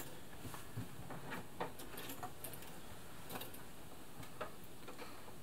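Light, irregular clicks and taps of hands handling the thread and plastic parts while threading a Brother FS60X sewing machine, over a steady faint hiss.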